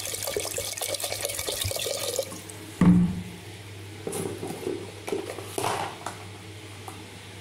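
Water poured into a cooking pot of raw dal and chopped vegetables, splashing for about two seconds and then stopping. A loud knock follows about half a second later, then a few softer knocks.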